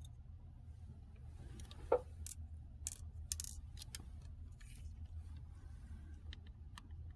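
Scattered light clicks and taps of small metal laptop parts and tools being handled on a workbench, the sharpest about two seconds in, over a steady low hum.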